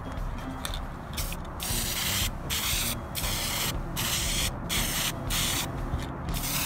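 Aerosol spray can of satin black Krylon plastic paint hissing in a run of short bursts, about eight, with brief gaps between passes, starting about a second in.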